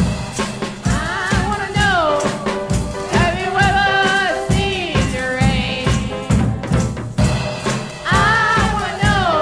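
A band and singers performing a pop-rock song, played back from a vinyl LP: wordless or unclear voices gliding over a drum kit keeping a steady beat.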